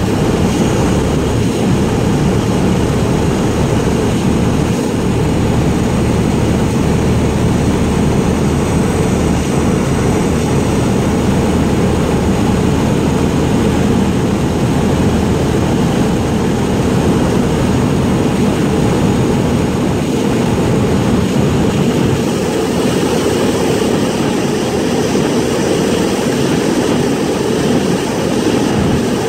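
Steady drone of a light propeller plane's engine and rushing air, heard from inside the cabin on the approach to landing.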